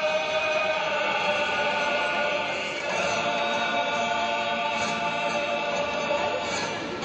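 Male Cape Malay choir singing a Nederlands lied: a lead voice holds long, drawn-out notes over the choir, moving to a new note about three seconds in.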